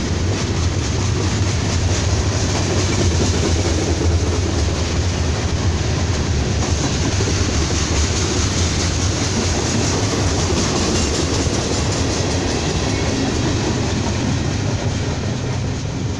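Norfolk Southern freight train's cars rolling past, a steady rumble and rattle of wheels on rail from covered hoppers and boxcars, growing a little quieter near the end as the train moves away.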